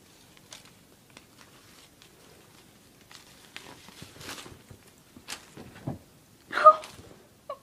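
Soft rustling and scratching of a cat moving about on a fabric bedspread, with scattered light clicks. Near the end comes one brief high-pitched cry, the loudest sound.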